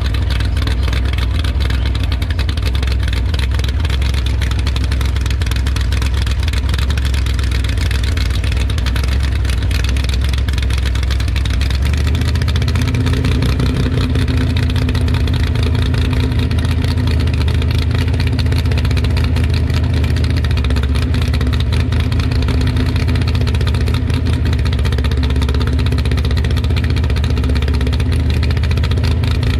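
Race vehicle engine idling steadily, a continuous low drone with no revving runs; the low note grows fuller about twelve seconds in.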